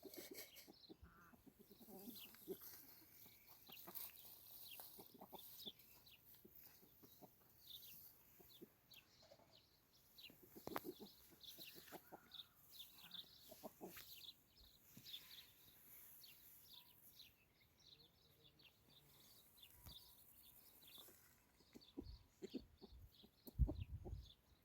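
Faint bird calls: many short, high chirps and clucks scattered throughout, with a few light knocks and some low thumps near the end.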